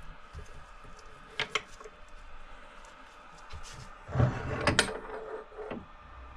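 Clicks, knocks and a scrape as the build plate of an Elegoo Saturn 4 Ultra resin printer is handled and lifted off its arm. There are a few light clicks about a second and a half in, and the loudest clatter comes about four seconds in.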